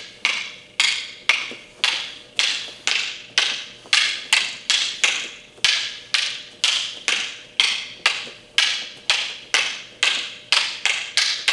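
Rattan eskrima sticks clacking together in a two-person sinawali drill: a steady run of sharp wooden knocks, about two to three a second, as the partners' paired sticks meet in high-low strike combinations.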